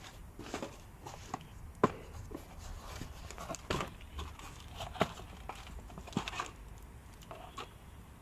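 Cardboard box being opened and handled: irregular rustling and scraping of the flaps with several sharp knocks, and crinkling plastic as a wrapped roll of exhaust heat wrap is lifted out.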